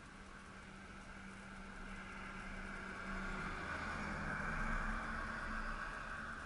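A van towing a caravan drives past, its engine and tyre noise swelling to a peak about four to five seconds in and then fading away.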